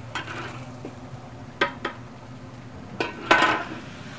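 Metal ladle knocking against a steel wok and strainer pot while beef and oil are scooped out. Two light knocks, then a louder ringing clatter near the end.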